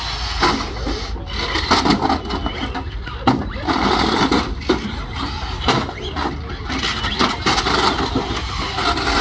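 Radio-controlled demolition-derby cars whirring as they ram and push each other around a wooden-walled ring, with scattered knocks of collisions, the sharpest about three seconds in. People talk in the background.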